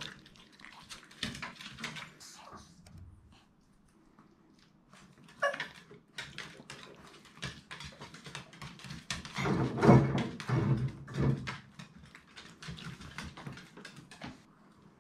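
Maltese dogs romping excitedly in a wire playpen on a wooden floor, their claws clicking and scrabbling many times. There is a short dog whine about five seconds in, and a louder stretch of dog noises around ten seconds.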